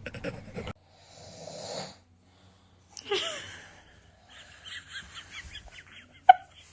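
A man's rasping snore followed by a baby's high squeal and a run of short, quick vocal sounds, with a sharp click a little after six seconds.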